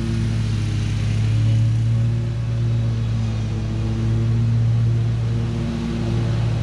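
Riding lawn mower engine running steadily under load, a continuous low hum with slight rises and falls in pitch.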